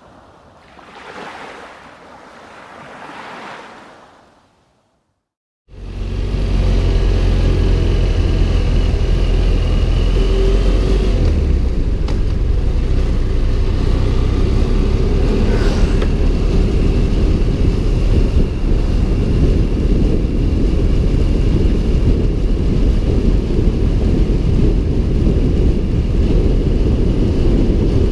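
Soft swells of harbour water for the first few seconds, then, after a moment of silence, a BMW F 700 GS motorcycle's parallel-twin engine running steadily as it is ridden. A heavy low wind rumble on the helmet-mounted microphone runs under the engine.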